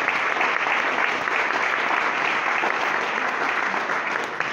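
Audience applauding, a dense, steady clapping that begins to tail off right at the end.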